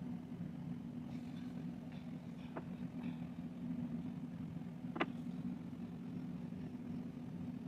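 A steady low machine hum, with two light clicks about two and a half and five seconds in, the second one sharper.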